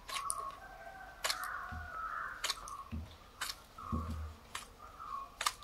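Utility-knife blade shaving and whittling a small wooden lure blank: short, sharp cutting strokes about once a second, with a few soft low thumps between them.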